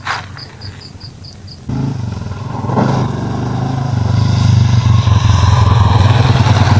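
A small engine starts up about two seconds in and keeps running with a fast, even pulse, growing louder. A sharp click comes at the very start.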